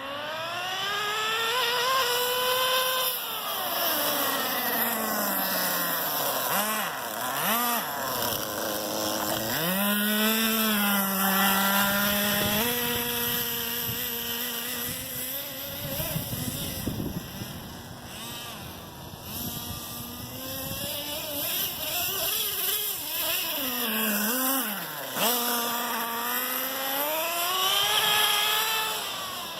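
Small nitro engine of a Redcat Volcano S30 RC monster truck running and being revved up and down repeatedly: it climbs to a high buzz, drops back, and climbs again, with a steadier stretch in the middle. The engine has just been brought back to running after two years sitting unused.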